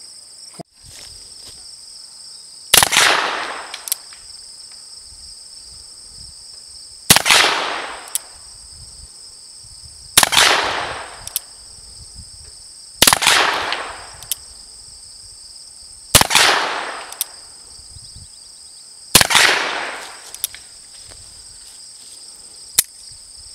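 Black-powder percussion revolver fired six times, about three seconds apart, emptying the cylinder; each shot is a sharp bang with a short fading echo.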